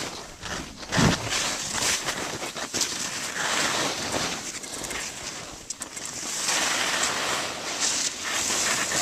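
Skis hissing and scraping through snow in swelling and fading waves, with wind buffeting the microphone. There is a single thump about a second in.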